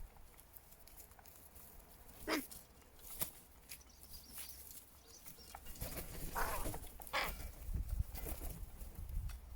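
A few short bird calls, one about two seconds in and more around six to seven seconds in, with a couple of light taps, over a faint low rumble.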